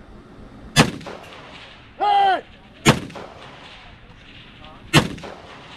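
Three single gunshots, evenly about two seconds apart. A short, pitched voice call comes about a second after the first shot.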